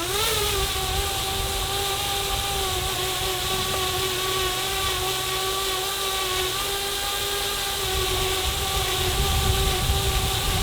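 Radio-controlled model aircraft's electric motor spooling up quickly and then running steadily at high throttle, a constant whine over a hiss, with some low rumble building near the end.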